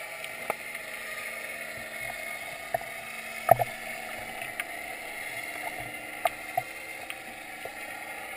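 Underwater ambience: a steady hiss broken by scattered sharp clicks, the loudest a double click about three and a half seconds in.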